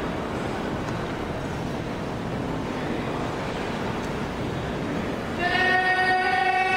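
Murmur of a large crowd in an echoing hall. About five seconds in, a loud, steady held note with many overtones starts and carries on.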